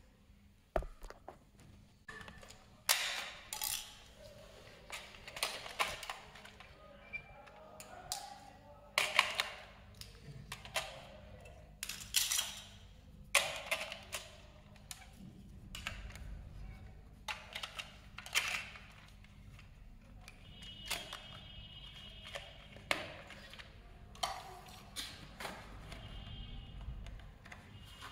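Irregular plastic clicks, taps and knocks as a toy remote control's battery compartment is opened with a screwdriver and AA batteries are pressed in. Two brief high tones come in the second half.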